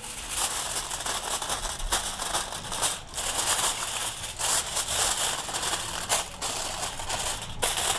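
Aluminium foil crinkling and crackling as it is pressed and folded down around the edges of a baking tray to seal it, with brief pauses about three seconds in and near the end.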